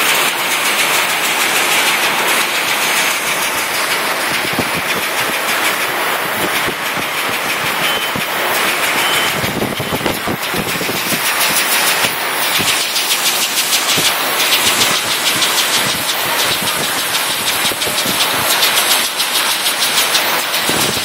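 Can conveyor line carrying oval sardine cans, running with a loud, constant machine noise and a dense, rapid clatter of metal cans rattling against each other and the guide rails. The clatter grows denser about halfway through.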